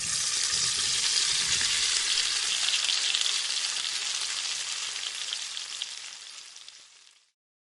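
Food sizzling in hot oil in a pan, a dense steady crackle that fades away near the end.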